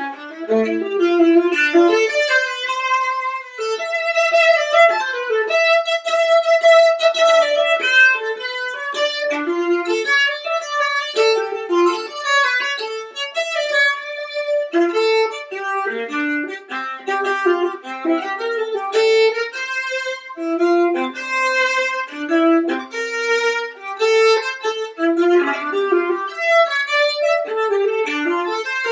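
Viola playing a fast, unbroken run of bowed notes.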